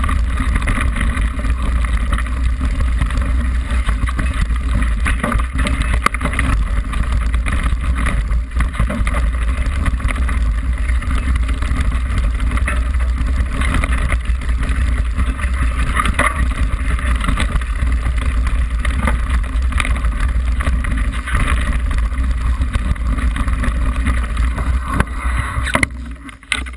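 Mountain bike riding fast down a rough trail, heard from a camera mounted on the bike: steady wind noise and tyre rumble with frequent knocks and rattles from the bike over bumps. Near the end the noise drops away as the bike slows.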